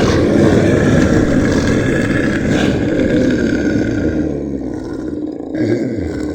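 Monster roar sound effect: a loud, rough, drawn-out roar that thins out about four seconds in, followed by a lower sound whose pitch wavers up and down near the end.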